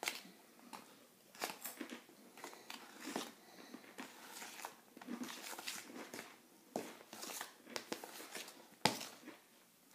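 A spoon stirring thick frosting and powdered sugar in a bowl: irregular scraping and tapping against the bowl, with one sharper knock near the end.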